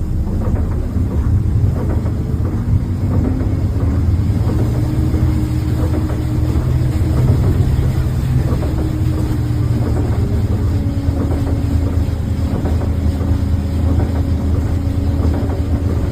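Bus engine and drivetrain running as the bus moves off, heard from inside the cabin: a steady low drone with a whine that shifts in pitch.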